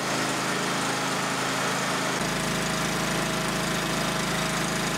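Single-cylinder four-stroke petrol engine of a 9 hp generator set running steadily; a deeper low rumble joins in about two seconds in.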